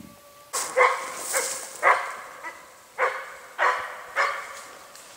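Weimaraner barking repeatedly: about eight sharp barks, roughly two a second.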